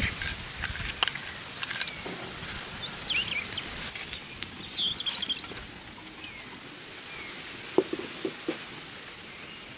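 Birds chirping in the background, with a few sharp clicks and taps in the first couple of seconds and a short cluster of knocks about eight seconds in.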